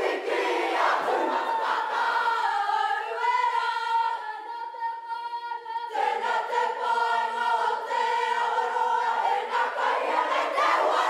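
Māori kapa haka group of male and female voices singing together in unison. A long held note about four seconds in gives way to a new phrase, and the voices grow fuller near the end.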